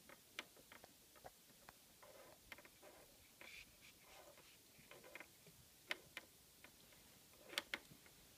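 A pen knocked about on a wooden dresser top by a kitten's paws: scattered, irregular light clicks and taps with faint scuffs, the sharpest about six seconds in and again a moment before the end.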